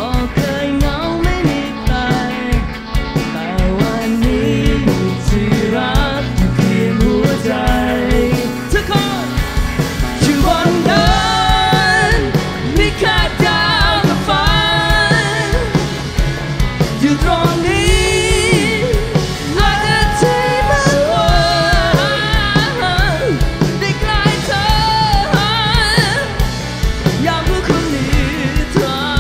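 Live rock band playing: electric guitar, bass, drum kit and keyboards with a steady beat, and a male voice singing over it from about ten seconds in.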